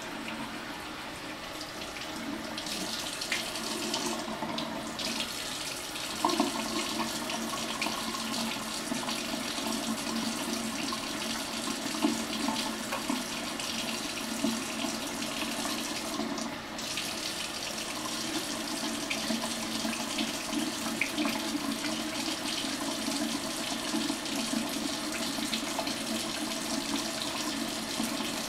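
Bathroom sink faucet running steadily, its stream splashing into the basin.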